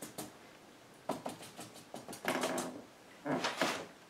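Marker pen drawing a dashed line on paper pinned to a corkboard: clusters of quick short strokes, three bursts about a second apart.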